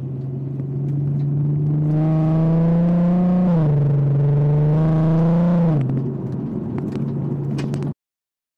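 Volkswagen Golf R32's 3.2 VR6 engine through a Scorpion exhaust, heard inside the cabin while driving. The engine note climbs slowly under gentle acceleration and drops twice, about a second and a half and then four seconds into the pull, as it shifts up. It cuts off suddenly near the end.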